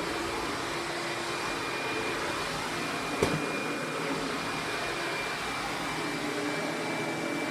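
Sebo Felix upright vacuum running with its parquet brush attached: a steady motor whine over a rush of air. There is a single sharp knock about three seconds in.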